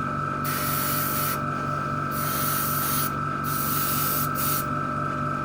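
Airbrush spraying black paint in three short bursts of hiss, each about a second long, over a steady hum.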